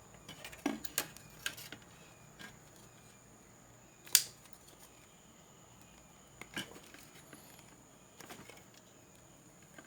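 Drop-ceiling grid tees being handled and fitted together: scattered light clicks and taps, with one sharp click about four seconds in.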